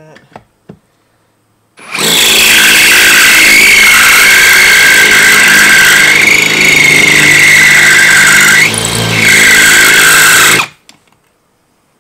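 Ryobi 18V cordless drill driving a 5/16-inch twist bit into a hardened steel impact-driver anvil: about two seconds in it starts and runs steadily for close to nine seconds with a high whine from the bit on the steel, dips briefly near the end, then stops. The bit is barely cutting and the part is overheating and smoking.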